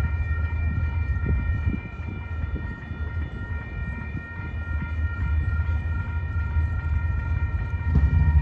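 Railroad grade-crossing warning bell ringing steadily over the low rumble of an approaching Amtrak diesel passenger train.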